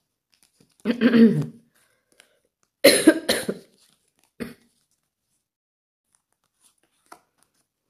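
A woman clearing her throat about a second in, then coughing twice in quick succession around three seconds in, with a short cough a little later. Her throat is sore.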